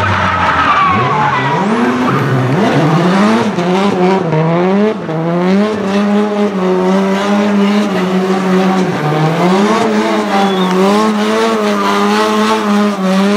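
Nissan Silvia S14 drift car with a turbocharged RB25DETT straight-six, held at high revs with the throttle worked so the engine note swings up and down, while the rear tyres spin and skid in a smoky drift.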